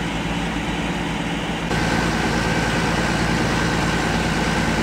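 Fire engine idling with a steady heavy-engine drone. About two seconds in, the sound steps up a little louder and a steady high whine joins it.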